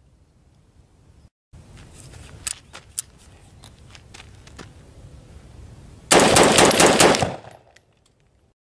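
AR-15-style rifle firing a rapid string of shots lasting about a second, near the end, after two fainter sharp cracks a couple of seconds earlier.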